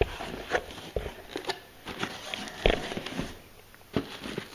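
Cardboard box and a plastic-bagged instruction manual being handled: irregular rustling and crinkling with scattered soft knocks, the sharpest about one second in, near the middle, and shortly before the end.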